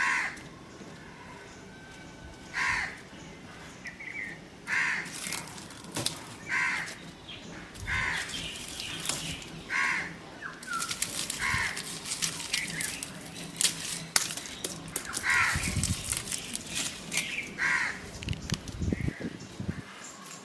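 A crow cawing over and over, about one call every two seconds, with sharp clicks and rustling in the middle of the stretch.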